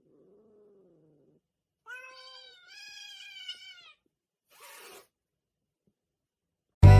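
A cat meowing: a faint low call at first, then two longer, louder meows from about two to four seconds in, followed by a short breathy puff. Music comes back in just before the end.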